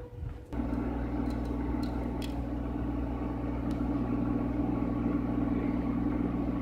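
Hot-air rework station switched on about half a second in: its blower runs with a steady hum and air rush, heating the eMMC BGA chip to reflow its solder balls.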